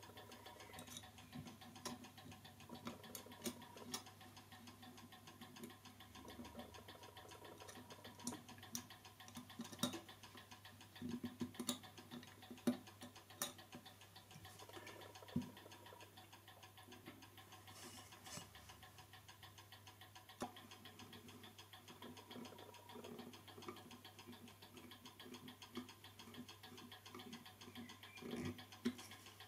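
Faint, irregular small metallic clicks and taps from a clock movement's parts and small tools being handled during reassembly, with a brief cluster of louder taps about midway.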